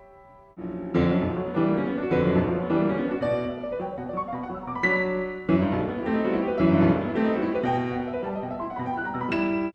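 Piano music in a classical style: chords struck about half a second in and again near five seconds, with notes running between them, breaking off suddenly near the end.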